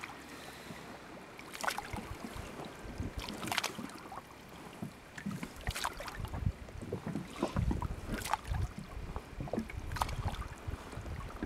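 A gillnet is hauled by hand over the side of a small wooden boat, with water dripping and splashing off the net and a few sharp splashes and knocks against the hull. A low wind rumble on the microphone sets in during the second half.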